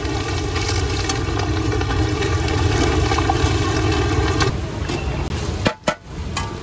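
Green chillies sizzling steadily in a large kadhai of hot, foaming oil, over a steady low rumble. Near the end two sharp metal knocks come as chopped onions are tipped into the oil from a steel tray.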